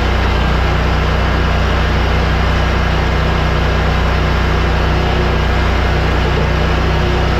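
Exmark Staris stand-on mower's engine running steadily at working speed, a loud constant drone.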